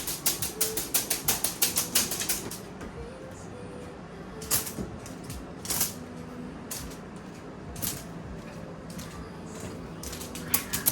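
Rapid light clicking, about five taps a second for the first two and a half seconds, then a few scattered single clicks.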